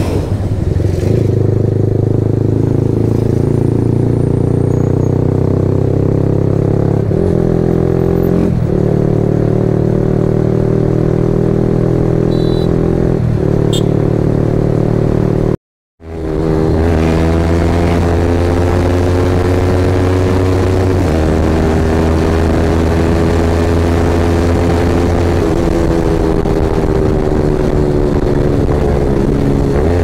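Yamaha R15M motorcycle's single-cylinder engine running at a steady cruise, heard from the rider's seat, its pitch drifting up and down a little with the throttle. The sound cuts out briefly about halfway through and comes back.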